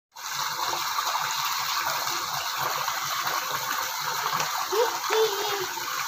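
Hot water pouring from a tap pipe into a stone-lined soaking pool, a steady gush and splash as the pool fills. Two short gliding pitched sounds come about five seconds in.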